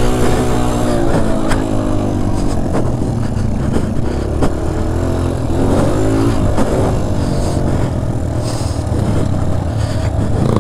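Dirt bike engine heard from the rider's seat, revving up and falling back again and again with the throttle as it is ridden round the track.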